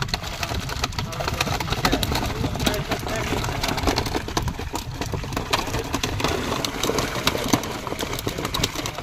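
Many fish thrashing and splashing in shallow water crowded inside a drawn seine net, a dense run of quick slaps and splashes, over a steady low rumble.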